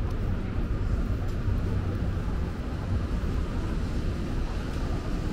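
Steady low rumble of city traffic under a light hiss of rain, with no single event standing out.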